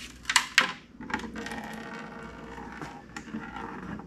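Transmission fluid pouring from a torque converter into a plastic bucket, a steady stream from about a second in, after a couple of knocks as the converter is handled and tipped.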